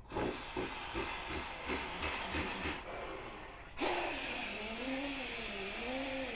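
A man imitating a diesel tractor-pull tractor with his voice: quick chugging puffs, about three or four a second. About four seconds in it switches to a loud, sustained hiss with a tone wavering up and down, like the engine screaming under full load down the track.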